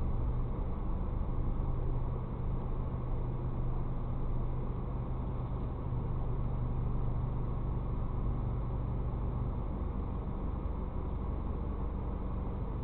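Car engine running at low revs in slow traffic, heard from inside the cabin as a steady low hum; a steady low tone in it drops out about nine and a half seconds in.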